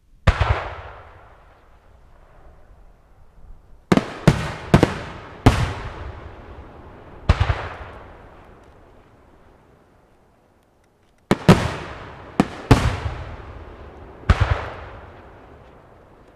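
Japanese aerial firework shells bursting overhead: about a dozen sharp bangs in two clusters, each trailing off in a long rolling echo.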